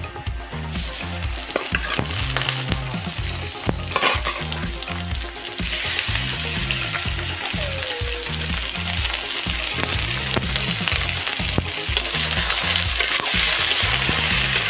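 Marinated eel pieces and sliced onions sizzling as they fry in hot oil in a wok, the sizzle growing louder about halfway through. A metal spatula stirs the pieces, with an occasional sharp click against the pan.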